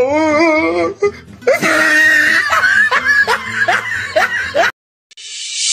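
Music with a wavering, wailing voice at the start, then a run of rhythmic laughing sounds. It cuts off suddenly near the end, and a new electronic music track with heavy bass begins.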